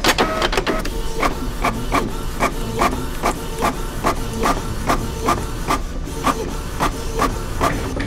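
Office printer running, a regular mechanical clacking about two and a half times a second that starts abruptly and stops shortly before the end, over a low steady room hum.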